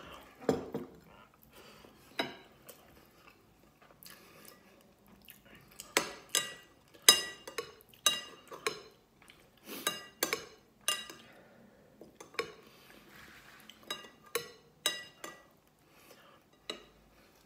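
Metal spoon clinking and scraping against a glass serving bowl and glass plate: a string of sharp, ringing clinks, most of them in the middle of the stretch.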